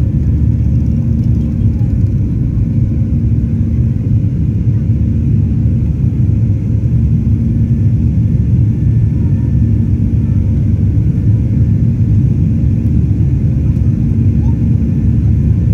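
Boeing 737-800's CFM56-7B jet engines at takeoff thrust, heard inside the cabin just behind the wing as the aircraft lifts off and climbs. The sound is a steady, loud, deep rumble with a faint low hum running through it.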